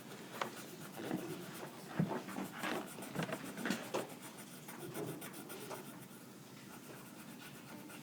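Faint scratching, rubbing and light taps, like writing or handling noises close to the microphone, busier in the first few seconds and then dying down.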